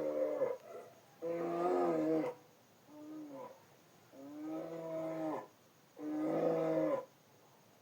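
Bear vocal sound effects for Paddington the cartoon bear: a series of short growling grunts and moans, about six in all, each under a second or so, with brief pauses between them.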